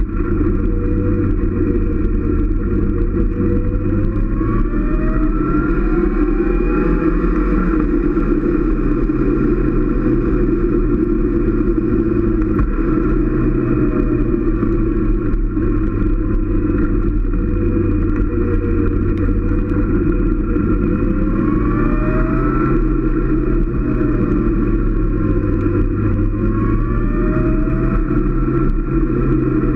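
Motorcycle engine running on the move, its pitch rising and falling a few times as the throttle opens and closes, under a steady rush of wind on the microphone.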